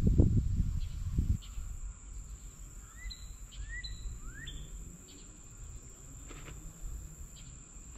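Wind rumbling on the microphone for the first second or so, then a bird giving three short rising chirps, over a steady high insect drone.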